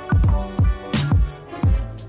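Background music with a steady beat: deep drum hits about twice a second with crisp high hits between, over held tones.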